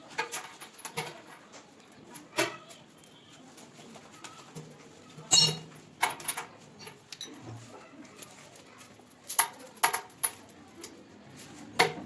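Scattered sharp metallic clinks and knocks of plumbing tools and fittings being handled during a wash basin installation, at irregular intervals, the loudest about five seconds in.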